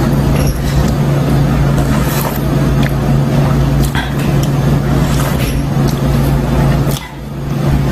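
A steady low mechanical hum, loud and unchanging, with a few light clicks of a metal spoon in the soup bowl; the hum dips briefly near the end.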